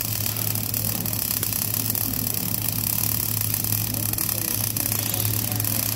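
MIG/MAG welding arc burning steadily as a vertical weld is run on steel plate: a continuous crackling hiss, with a steady low hum underneath.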